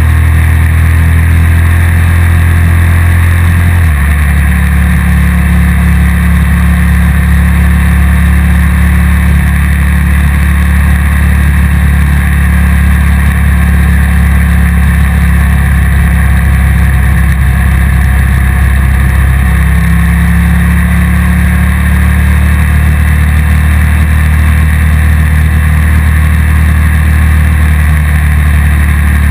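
Motorcycle engine running steadily at cruising speed. Its note changes once about four seconds in, then holds steady.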